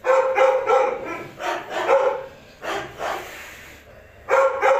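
A dog barking in quick clusters of two or three sharp, high barks, with short pauses between the groups.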